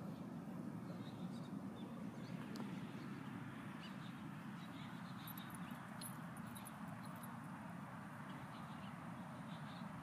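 Faint outdoor ambience: distant small birds chirping in short scattered bursts over a steady low rumble.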